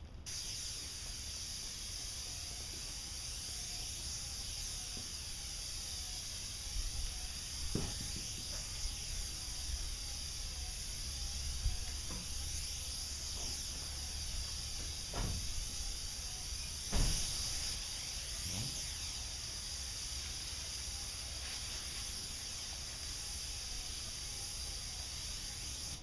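Airless paint sprayer spraying through a Graco Contractor II gun with a 515 RAC reversible tip: a steady hiss of paint being atomised, with a low rumble underneath. A few faint knocks come through about 8, 15 and 17 seconds in.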